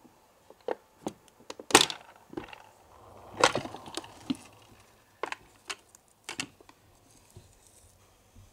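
Irregular small clicks, taps and knocks from hands handling small plastic miniature kitchenware, with two sharper knocks about 2 and 3.5 seconds in.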